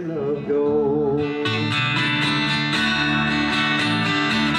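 Guitar music: a wavering held note, then strummed chords with a steady beat from about a second and a half in.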